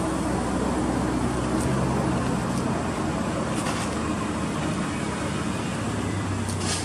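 A steady low motor rumble, like road traffic, with a few short, crisp scratchy sounds, the clearest near four seconds in and near the end.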